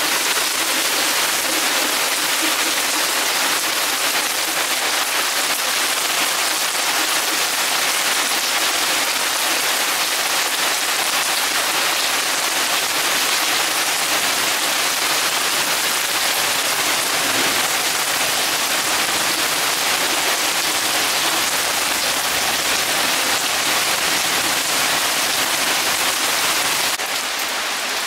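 Heavy thunderstorm downpour: rain pouring down steadily as a dense, even hiss, a little quieter near the end.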